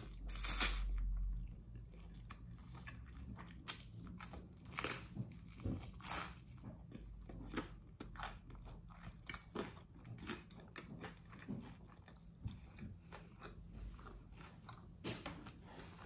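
Close-up eating sounds: a slurp of spaghetti in the first second or so, then steady chewing with many short irregular wet clicks and crunches of pasta and garlic bread.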